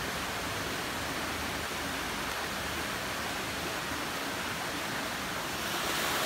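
Steady rush of running water, a little louder near the end.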